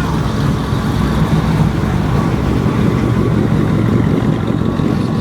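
A car engine running steadily, mostly deep low sound with no rise or fall in pitch.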